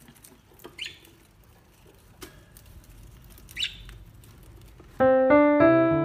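A caged lovebird gives two short, high chirps, about a second in and again near four seconds, over faint clicks and rustling. Electric piano music starts loudly about five seconds in.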